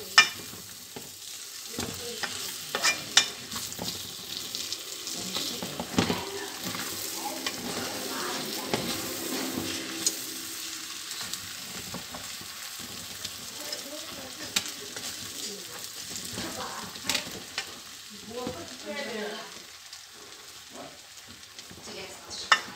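Wooden spoon stirring and scraping rice along the bottom of a metal pot as it fries on the stove, with a steady sizzle and occasional sharp knocks of the spoon against the pot, the loudest just after the start and about three seconds in.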